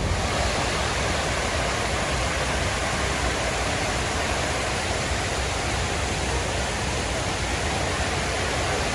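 The 9/11 Memorial reflecting pool's waterfalls pour down the pool walls in a steady, even rush of water.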